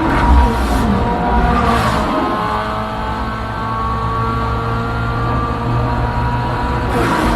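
Race car engines revving and accelerating in a film street-race scene, the engine pitch climbing steadily over a deep rumble.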